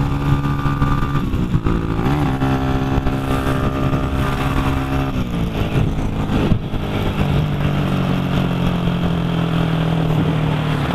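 Motorcycle engine running while under way, heard from the rider's position, with rushing wind noise. The engine note shifts in pitch about two seconds in and again around five to six seconds in, then holds steady.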